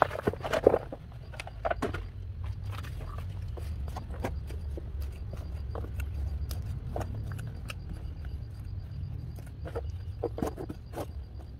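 Small hand trowel scraping and digging through soil in a styrofoam box, a run of irregular short scratches and clicks over a steady low rumble.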